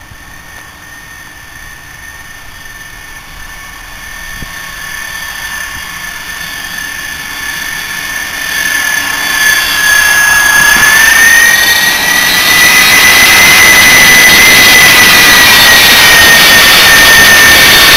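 C-5 Galaxy's four turbofan jet engines on landing approach, growing steadily louder as the aircraft closes in. A high steady whine rides over the jet noise, bending slightly up in pitch past the middle, and from about two-thirds in the engines are very loud.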